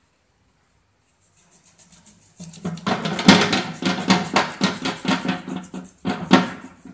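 Background music with a steady beat, fading in after about a second of silence.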